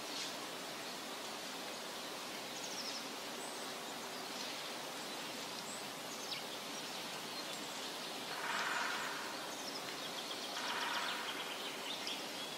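Forest ambience: a steady hiss with scattered high bird chirps, swelling twice, about eight and ten seconds in.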